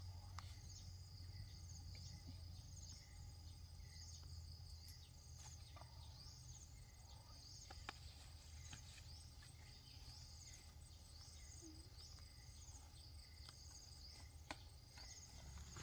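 Faint outdoor ambience: a high chirp repeating about once a second over a steady low rumble, with a few light clicks.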